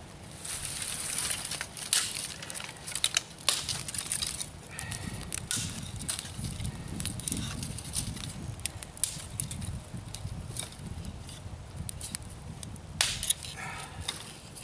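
Small campfire of kindling and tinder burning, crackling and popping irregularly, with a few louder pops about three seconds in and again near the end.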